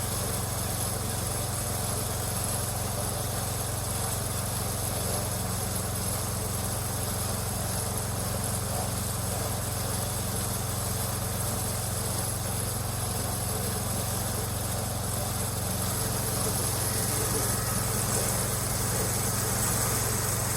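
An engine running steadily, its low note shifting and getting a little louder about 16 seconds in.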